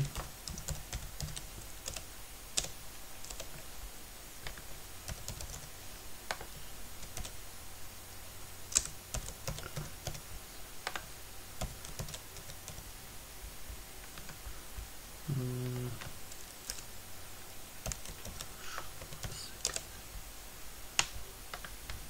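Typing on a computer keyboard: irregular keystroke clicks, some sharper than others. A brief low hum comes about 15 seconds in.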